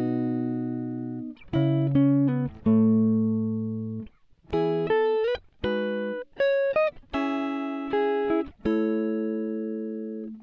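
Background music: a slow melody of single plucked notes, each starting sharply and ringing down, with a few short slides in pitch between notes.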